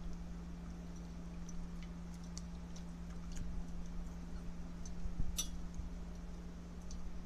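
Black grapes being swished by hand in water in a steel bowl: faint splashes and light clicks of grapes knocking together and against the bowl, one sharper click about five seconds in. A steady low hum runs underneath.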